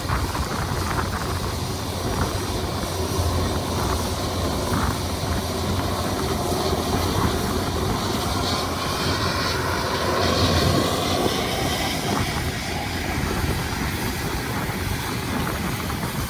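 New Holland T9.670 HD four-wheel-drive tractor engine running steadily under load while pulling a Bourgault air drill, a deep hum with a wide rushing noise over it that swells slightly about ten seconds in.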